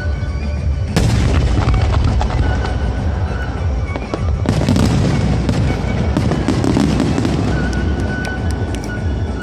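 Aerial fireworks bursting, with big booms about a second in and again near the middle, then a spell of sharp crackling, over music playing throughout.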